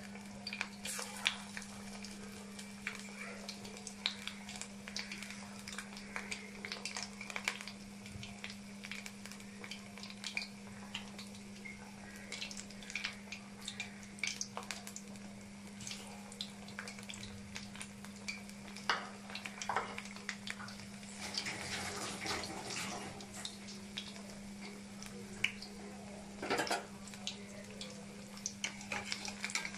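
Battered fritters deep-frying in hot oil in a wok: scattered pops and crackles of the oil, with a few clattering metal-on-pan moments, over a steady low hum.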